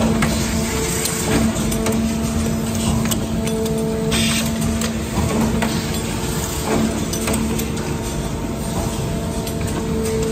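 Automated machining line for engine bearing shells running: a steady mechanical hum with a constant low tone, broken by a short burst of hiss about four seconds in.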